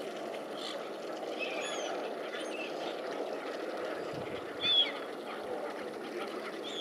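Short, high waterbird calls that slide down in pitch, several of them, the loudest about two-thirds of the way through, over a steady wash of water and wind noise at the water's surface.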